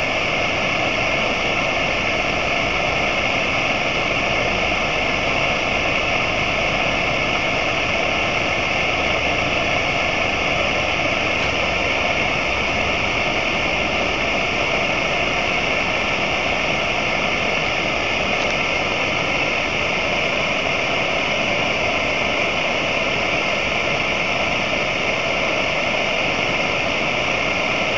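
Gas torch flame burning steadily into a rusty steel sleeve: a constant, even hiss with no change in pitch or level.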